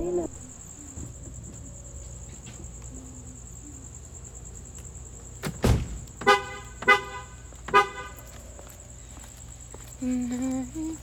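Three short car horn toots, the loudest sounds, about a second into each other, following a sharp click. Under them run a steady high insect trill and a low hum.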